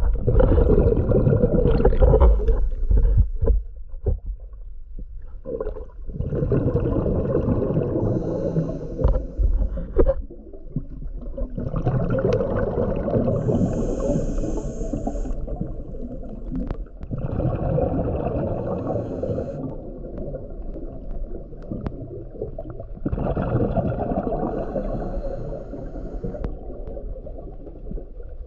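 Muffled underwater noise from a submerged camera: a low rumble with gurgling water, swelling in surges of a few seconds.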